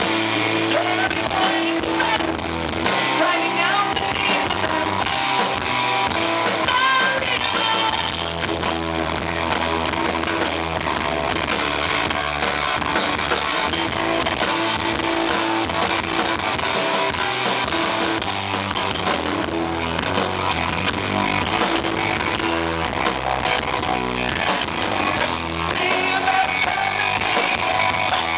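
A rock band playing, with guitar, drums and singing, in a heavily distorted recording.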